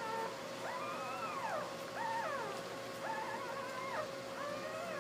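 Newborn basset hound puppies whining and squeaking as they nurse, about five high calls that rise and fall and overlap one another. A steady faint hum runs underneath.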